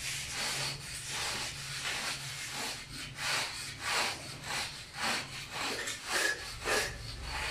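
A hand tool rubbing and scraping over fresh cement on a concrete stair step in repeated strokes, about two a second, smoothing the cement finish.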